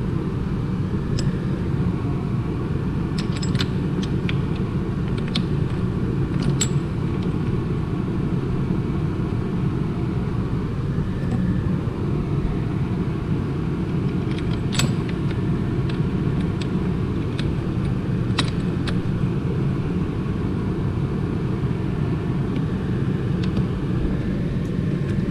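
A steady low rumble of shop background noise, with scattered light metallic clicks and taps as rocker-assembly parts are handled and set into place on the engine's cylinder head.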